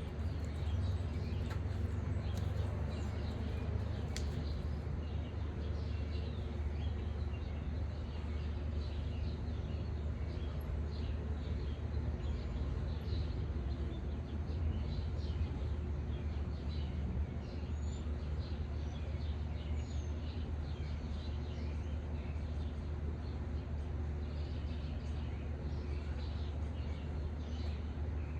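Small birds chirping over and over, many short high calls, over a steady low rumble of outdoor background noise.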